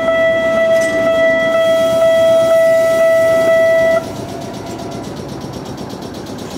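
Electronic level-crossing warning bell ringing steadily at about two strokes a second, cutting off suddenly about four seconds in, over the rumble of an electric train pulling in. After it cuts off, only the lower, steady noise of the halted train remains.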